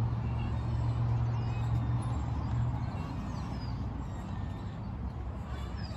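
A motor vehicle's engine hum, low and steady, fading away over the first few seconds and leaving a general outdoor rumble, with a few faint bird chirps.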